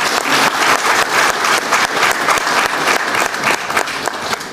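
Audience clapping in a hall, many hands at once, in steady applause that gradually dies down toward the end.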